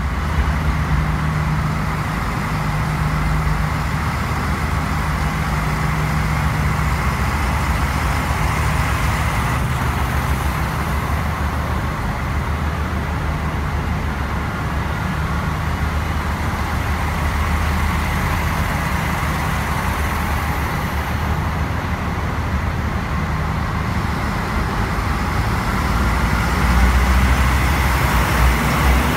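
Regional TER train, an X 73500 diesel railcar coupled to AGC units, rolling slowly alongside the platform with its engines running steadily and a thin high whine over them. It gets a little louder near the end as a cab end passes close.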